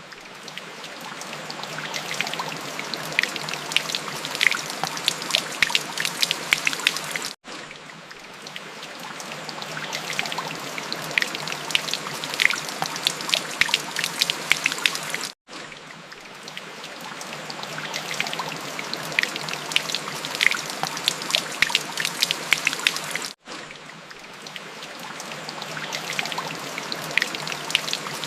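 Rain falling, with many distinct drops pattering and plinking over a steady hiss. The sound drops out briefly about every eight seconds and builds back up, repeating as a loop.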